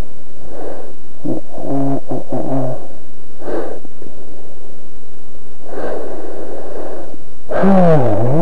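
Rotax 503 two-stroke twin engine of an ultralight trike running at low taxi power, loud and distorted. Its pitch drops and climbs back up near the end as the throttle is eased and reapplied.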